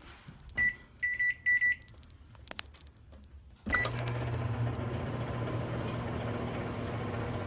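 Microwave oven being set and started: several short keypad beeps as the time is entered, then a final beep about three and a half seconds in, after which the oven runs with a steady hum.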